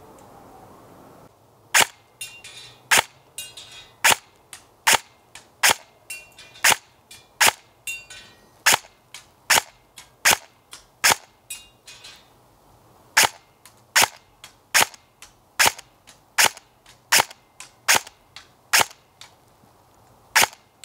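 Double Eagle M906A airsoft electric gun firing single shots on semi-auto, about twenty-two sharp cracks at roughly one every 0.8 seconds, with a short pause midway. Fainter ringing ticks of BBs hitting the aluminium cans follow several shots.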